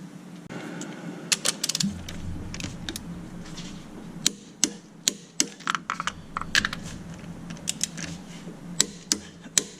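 Ratchet of a torque wrench clicking in short bursts of strokes as an engine mount bolt is tightened to 65 lb-ft.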